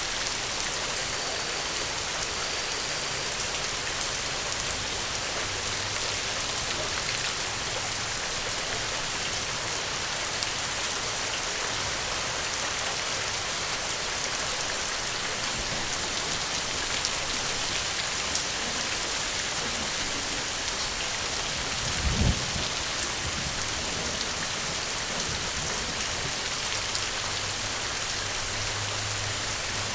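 Steady rain falling, an even hiss with a short, low rumble of thunder about two-thirds of the way through.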